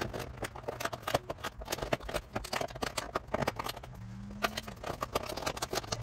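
Irregular light clicks, taps and rustling from hands working vinyl siding panels.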